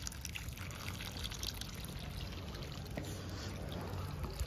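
Irrigation water pouring steadily out of a pipe into a flooded, muddy field furrow.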